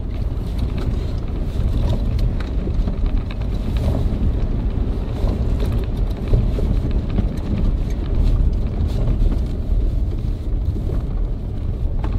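Jeep driving along an unpaved backcountry track: a steady low rumble of engine and tyres with scattered knocks and rattles.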